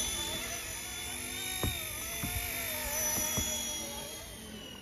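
Small RC ERA C189 MD500 scale RC helicopter in flight: a steady high whine from its electric motor and spinning rotors, wavering slightly in pitch and getting quieter near the end.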